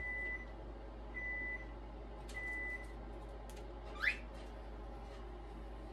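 A steady high beep repeats about once a second, three times, then stops. About four seconds in, a cockatiel gives one short rising chirp, the loudest sound here.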